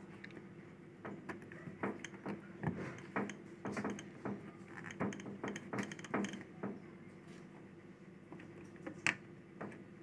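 Small plastic clicks and taps as the inlet filter screen is pushed and seated by hand into the washing machine's water inlet valve. It is an irregular run of light clicks for most of the first seven seconds, then one sharper click near the end, over a faint steady hum.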